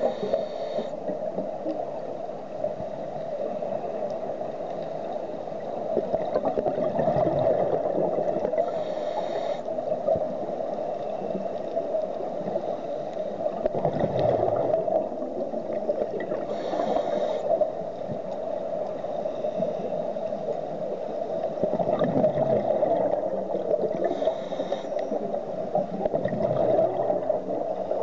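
Scuba diver breathing through a regulator, heard underwater: a short hiss of inhalation roughly every eight seconds, with the gurgling rumble of exhaled bubbles between breaths.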